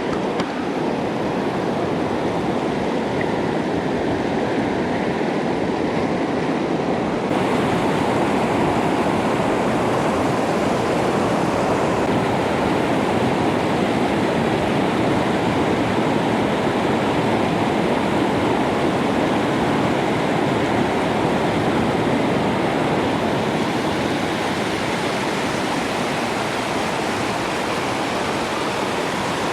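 Steady rush of a fast-flowing mountain river, with a slight shift in tone about seven seconds in.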